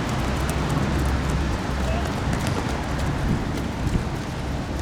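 Open-air football pitch ambience: distant players' voices over a steady low rumble, with a short knock about four seconds in.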